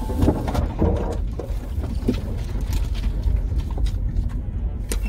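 A vehicle crawls slowly over a rough woodland trail, heard from inside the cabin: a steady low rumble from the drivetrain and suspension with scattered knocks and rattles from the bumps. In about the first second there is a burst of scraping as branches brush along the body.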